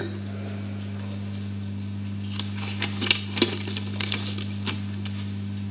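Steady low electrical hum, with a few faint scattered clicks and rustles in the middle.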